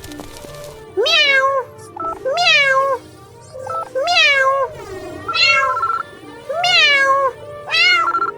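A cat meowing six times in a row, each meow about half a second long, rising and then falling in pitch, with about a second between meows.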